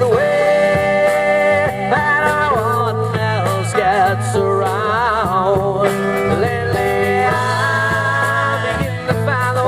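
Rock band music: a lead melody of long held notes that bend and waver, over a steady bass line and drums with cymbals.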